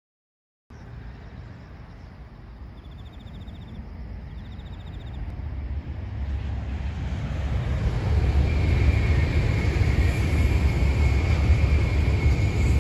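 Shinkansen bullet train approaching across a concrete viaduct: a rumble and rushing noise that swells for about eight seconds and then holds. A steady high whine joins about eight and a half seconds in.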